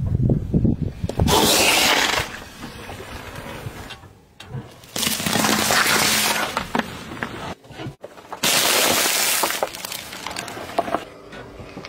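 A car tyre rolls over objects one after another and crushes them, with loud cracking, crunching and breaking. The sound comes in several bursts of a second or so each.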